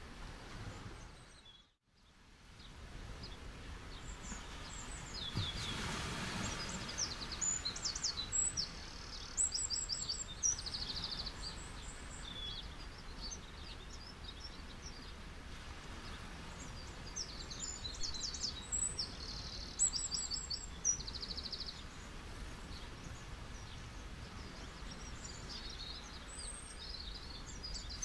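Ocean surf washing steadily, with small birds chirping and twittering over it again and again. The sound drops out briefly about two seconds in and fades back up, and a wave swells a few seconds later.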